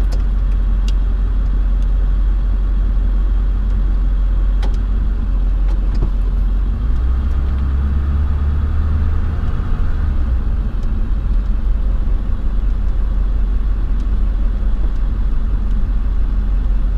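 Steady low rumble of a vehicle's running engine, swelling deeper for a few seconds in the middle.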